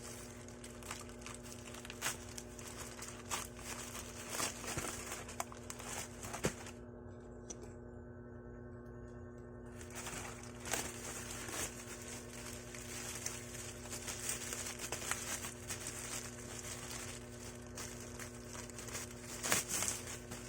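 Plastic packaging of a parcel crinkling and rustling as it is handled, with scattered taps and clicks, over a steady low hum.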